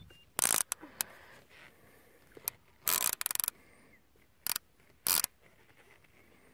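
Multiplier fishing reel ratcheting in several short bursts, the longest about three seconds in, as a big wels catfish pulls against the bent rod.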